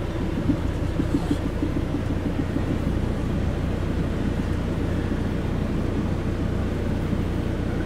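Forklift engine running steadily with a low hum, holding a rudder as it is eased up into its bearing.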